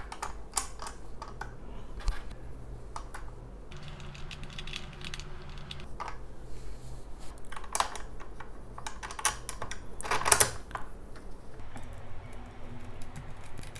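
Irregular small clicks and taps of a nut and bolt being fitted through a tricycle's front fork and wheel axle and tightened by hand, with a denser cluster of clicks about ten seconds in.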